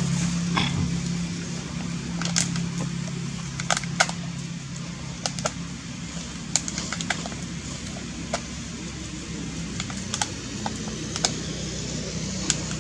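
Scattered sharp clicks at irregular intervals, roughly one a second, over a steady low hum that weakens after the first couple of seconds.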